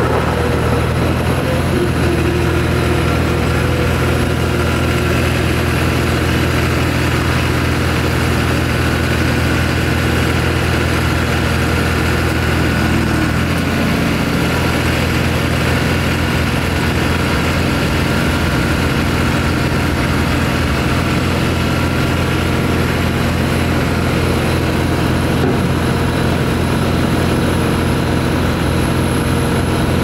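John Deere 250 skid steer's diesel engine running steadily while the machine drives and works its loader bucket. The engine note shifts about halfway through.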